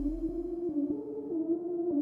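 Early hardstyle music in a DJ mix at a breakdown: a deep bass tone fades out in the first half-second, leaving a simple stepping synthesizer melody with faint ticks.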